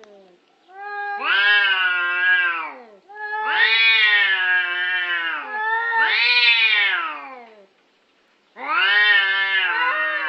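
An animal's long, drawn-out wailing calls, four in a row, each about two seconds long, rising then falling in pitch, with a short pause before the last one.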